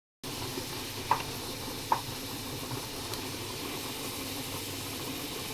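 Steady background hiss of room noise, with two short, sharp taps a little under a second apart near the start.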